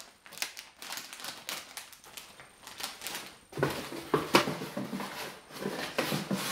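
A plastic bag of chips crinkling as it is handled and put down, then louder rustling and light knocks as hands rummage inside a cardboard box, starting about three and a half seconds in.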